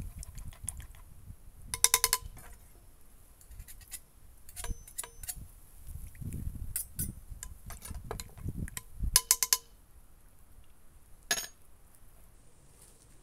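A spoon and a kitchen knife stirring vegetables in a pot, with two quick runs of ringing metallic clinks as the utensil is rapped against the pot, about 2 s and 9 s in, and lighter clinks in between. Near the end, one sharp knock as a utensil is set down on a wooden cutting board.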